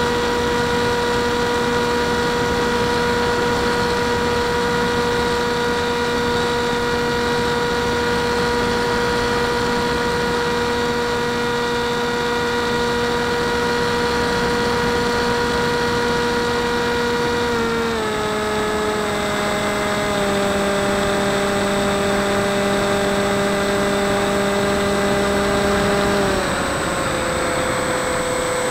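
A Turnigy L2210-1400 brushless outrunner motor turning an Airscrew 6x4 propeller on a Dynam Hawk Sky RC plane, heard from a camera on board: a steady whine with wind rush. The whine drops in pitch in steps about two-thirds of the way through and again near the end as the motor slows.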